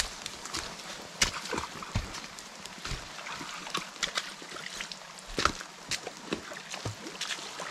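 Footsteps squelching and splashing on a wet, muddy walking track, an uneven tread of sharp steps about every half second to second, with steady rain hissing behind.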